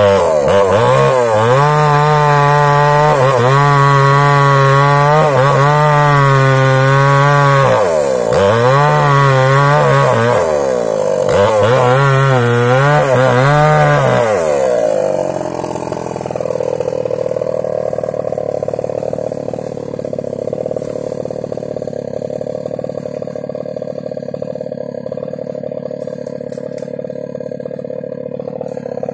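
Small chainsaw running at high revs and cutting wood, its pitch dipping and recovering several times under load. About halfway through it drops back to a steady idle.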